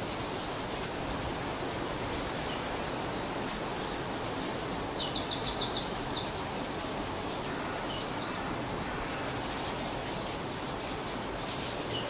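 Small songbird calling: scattered high chirps and, near the middle, a short rapid trill of about six notes, over a steady low background noise.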